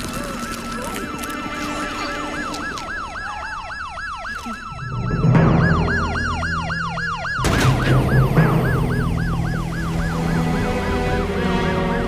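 Fast-warbling siren, its pitch swooping down and back up about three times a second, over a low drone that swells in about five seconds in; a sharp hit comes midway.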